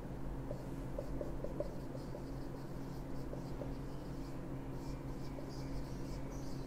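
Marker pen writing on a whiteboard: faint short squeaks and scratching strokes, over a steady low hum.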